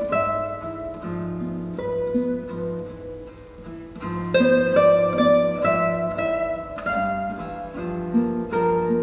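Two classical guitars playing a duet, plucked melody over bass notes. The playing softens in the middle, then comes back louder with ringing plucked chords about four seconds in.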